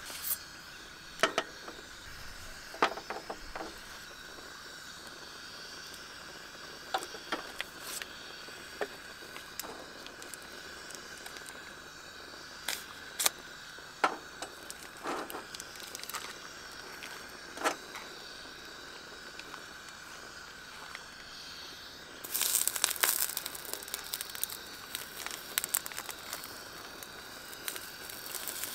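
Scattered clicks and crackles, then, about three-quarters of the way through, a sudden dense sizzling starts and keeps going: food frying on the hotplate of a portable gas BBQ.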